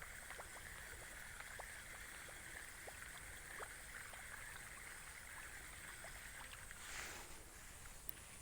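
Faint outdoor ambience: a steady high hum with scattered light ticks, and a short rushing whoosh about seven seconds in.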